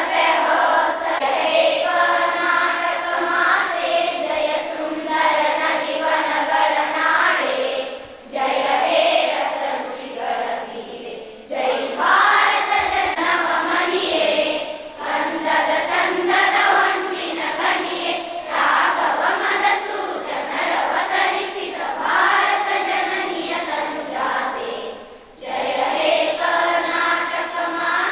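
A children's school choir singing together in held, sustained phrases, with short breaks between lines.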